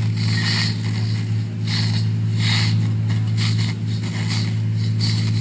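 Fire apparatus engine and pump running at a steady, unchanging pitch to feed the hose lines, with the hiss of high-pressure water streams swelling and fading over it.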